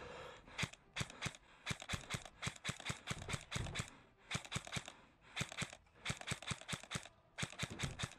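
Quick footsteps crunching over the ground, a steady run of sharp steps that comes in groups with short pauses between them.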